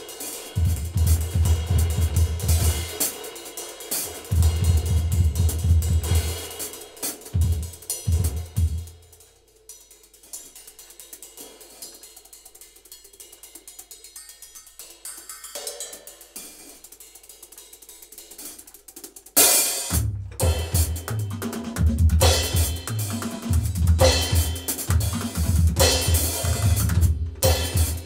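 Drum kit played in a Latin candombe groove, with kick, snare, hi-hat and cymbals. About nine seconds in it drops to a quiet, sparse passage, and the full loud groove comes crashing back in about ten seconds later.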